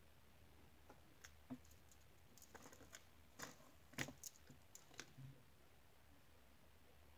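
Faint scattered clicks and taps of a nail-art brush and a small gel pot being handled on a tabletop, about a dozen over a few seconds, the sharpest about four seconds in.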